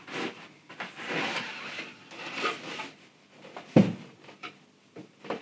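Microphone's retail box being opened and its packaging handled: stretches of cardboard scraping and rustling, with one sharp knock a little under four seconds in, then a few small clicks.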